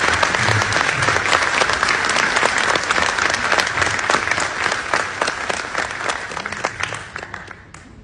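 Audience applauding: a room full of people clapping steadily, dying away near the end.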